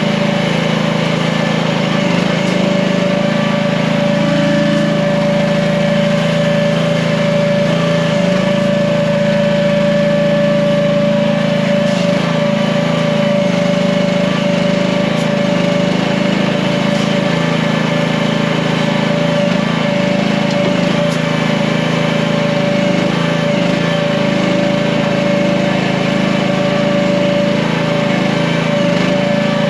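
Small gasoline engine of an AGT H15 mini excavator running steadily at a constant speed, with a steady whine over the engine note.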